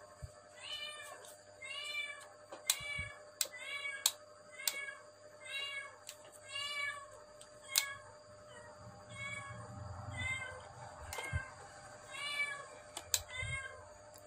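A cat meowing over and over in short calls, each rising and falling in pitch, about two a second. A few sharp clicks come in between.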